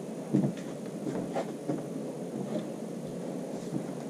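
Small tin cans handled on a tabletop: a soft knock about a third of a second in, then a few faint clicks and handling noises.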